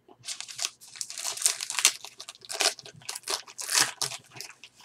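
Crinkling and tearing of a trading-card pack's foil wrapper as it is ripped open: an irregular run of crackles lasting about four seconds.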